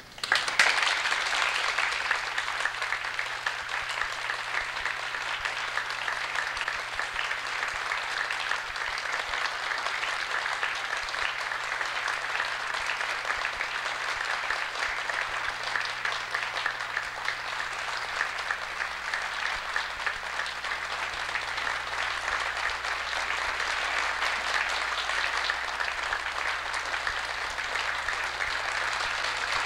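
Theatre audience applauding, breaking out all at once and keeping up steadily.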